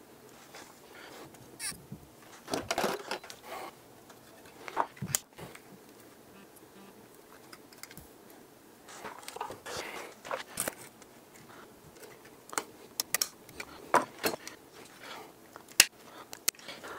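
Small clicks, taps and scrapes of hand work on a circuit board, a soldering iron and desoldering braid being worked over solder joints while desoldering a plug-in card, coming in irregular clusters.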